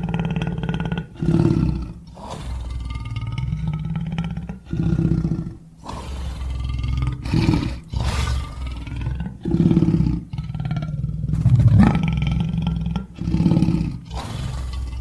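Lion roar sound effect: a run of about a dozen roars and growls, each up to a couple of seconds long, with short breaks between them.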